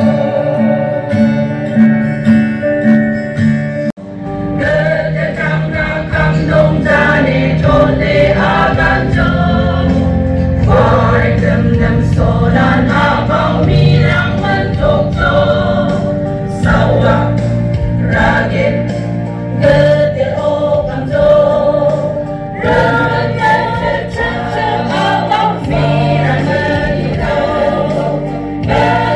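Congregation or choir singing a hymn with instrumental accompaniment.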